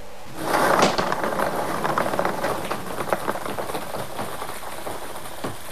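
Lottery drawing machine starting its draw: balls released into the clear mixing chamber clatter and knock over a steady mechanical noise that comes up about half a second in, loudest at first and then settling.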